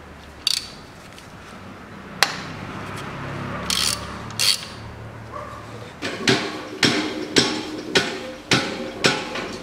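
Metal tool clicks as a 3/8-inch square-drive wrench cracks loose the drain plug of a Daewoo Matiz manual gearbox. Near the end comes a regular run of sharp metallic knocks, about two a second.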